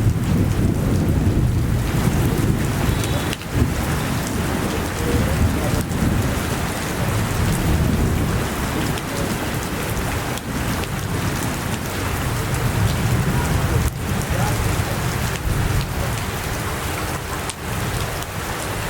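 Steady rushing noise of heavy rain, with a deep rumble underneath and a few brief dips in level.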